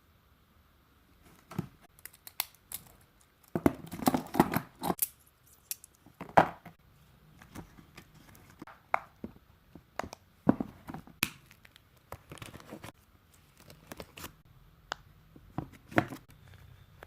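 Hand-made paper packaging being torn open and crinkled, with irregular sharp crackles and rustles, densest about four seconds in.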